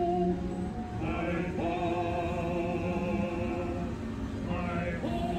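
Background music of the ride area: wordless choir-like singing in long held chords, with new chords swelling in about a second in and again near the end, over a steady low rumble.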